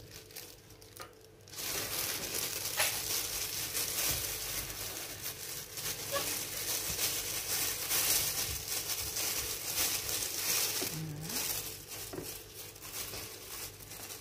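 Thin clear plastic bag crinkling and rustling as a hand inside it presses and shapes sticky rice around a chicken filling. It starts about a second and a half in and turns quieter near the end.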